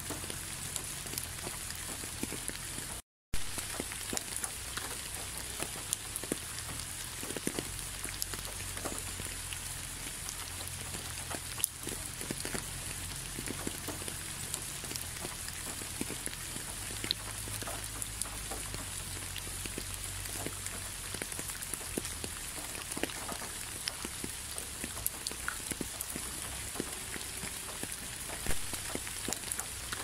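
Steady rain falling, a dense hiss full of small ticking drops over a low rumble. The sound cuts out completely for a split second about three seconds in.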